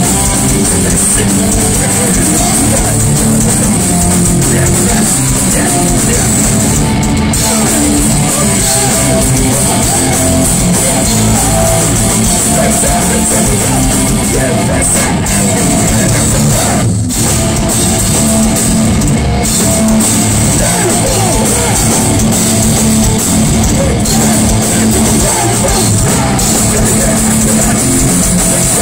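Hardcore punk band playing live and loud: distorted electric guitars, bass and drum kit with a singer on the microphone, with a momentary break in the music about seventeen seconds in.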